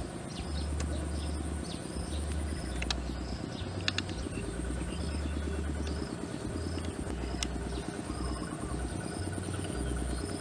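Rural outdoor ambience: short chirps repeating about twice a second over a steady high insect whine and a low, gusty rumble. A few sharp knocks of a wooden pestle in a small wooden mortar stand out, a double one about four seconds in and another near the three-quarter mark.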